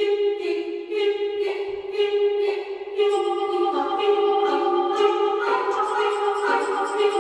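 Background music: sustained choir-like chords over a steady pulse, getting fuller about three seconds in.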